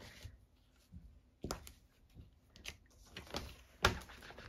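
Clear acrylic stamp block knocking against the ink pad as it is inked and then pressed down onto cardstock: a few separate light knocks, the loudest a little before the end.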